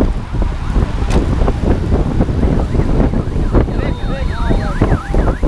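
Wind buffeting the microphone of a bike-mounted camera riding in a moving group of cyclists. About three and a half seconds in, a siren starts up with a fast, repeating up-and-down yelp.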